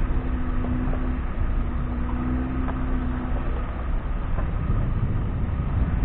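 Vehicle engine running while driving off-road: a steady low rumble with a faint held tone that fades out about halfway through, and scattered light knocks and rattles.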